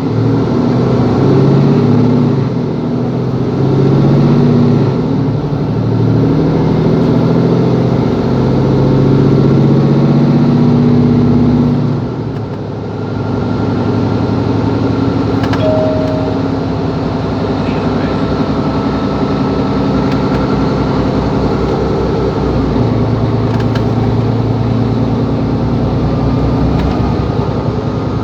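Diesel engine of a 2017 Mercedes-Benz Capacity L articulated city bus under way, its pitch climbing in steps through the automatic gearbox's gears for about twelve seconds, then easing and running on more steadily. A short beep sounds once, about halfway through.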